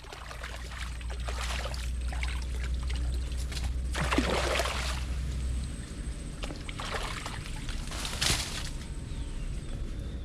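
Water sloshing and pouring in several separate splashes, the loudest about four and eight seconds in, over a low steady rumble that stops a little past halfway.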